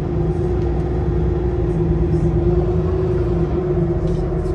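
Inside the cabin of a 2022 Nova LFS transit bus under way: its Cummins L9 diesel engine and driveline run with a low rumble and a steady, even-pitched whine.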